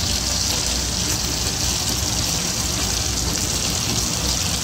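Chicken drumsticks frying in hot oil in a pan, a steady, even sizzle.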